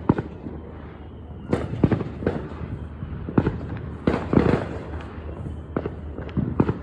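Fireworks going off: an irregular series of sharp bangs and crackles, several coming in quick clusters.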